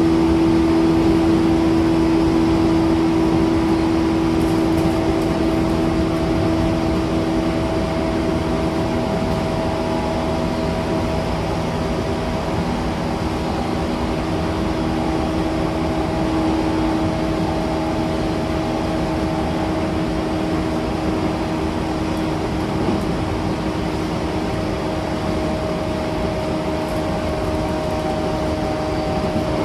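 Running noise inside a JR East E235-1000 series electric train at speed: a steady traction-drive whine over the rumble of wheels on rail. The whine sinks slightly in pitch and the sound eases a little as it goes.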